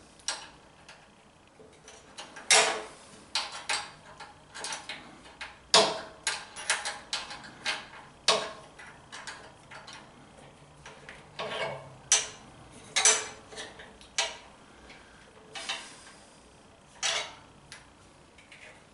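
Metal wrench clinking and clicking irregularly on the oil drain fitting as it is run in and tightened down in the engine's drain hole, with several sharper clanks.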